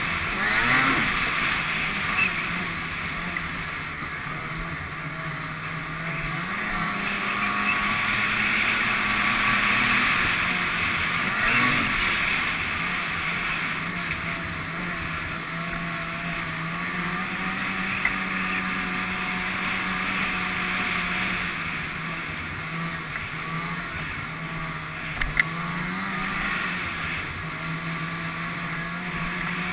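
Ski-Doo snowmobile engine running under way, its steady note stepping up and down a little with the throttle, over a loud hiss. A few brief knocks.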